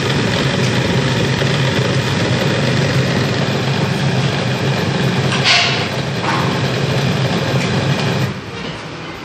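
Electric coil winding machine running, spinning a finned aluminium coil former with a steady low hum and mechanical rattle as copper wire winds on. There is a brief hiss about five and a half seconds in, and the machine stops about eight seconds in.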